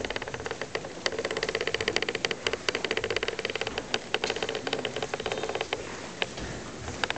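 Audience applauding with dense clapping, thinning to a few scattered claps near the end.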